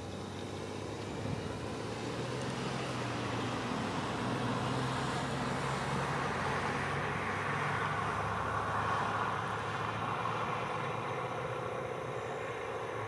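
A road vehicle passing, its road noise swelling over several seconds and then easing off, over a steady low hum.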